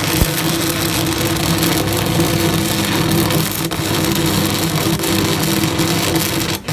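Electric arc welding: a steady crackle and hiss with a buzzing hum underneath, breaking off briefly near the end.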